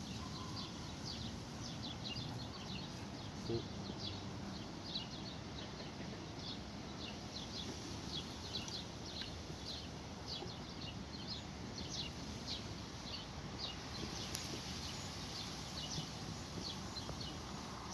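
Small birds chirping in the background: many short, high chirps repeated irregularly over a faint steady outdoor hiss.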